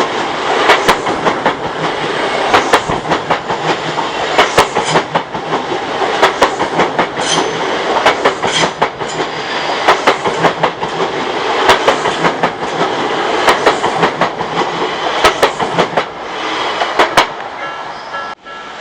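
Odakyu electric train passing over a level crossing, its wheels clacking over the rail joints in a long, fast, rhythmic run of knocks. Near the end the train sound falls away and a crossing warning bell begins ringing in a repeating two-tone pattern.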